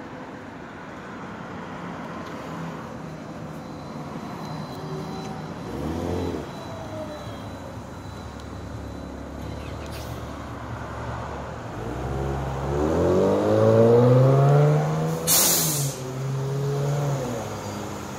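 Electric trolleybus pulling away, its traction motor whining, rising in pitch as it accelerates and then settling. A short loud hiss of air cuts in partway through.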